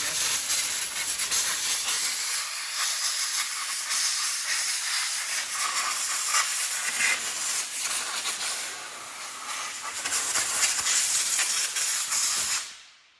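Compressed air hissing steadily from an air hose blowing over an engine, stopping abruptly near the end.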